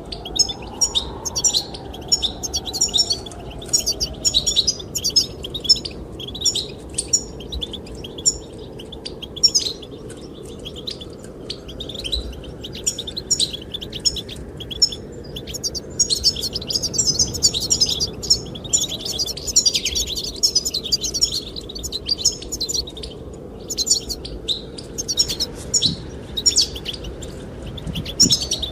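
Goldfinches singing: continuous rapid twittering chirps and trills, over a low steady rush of wind.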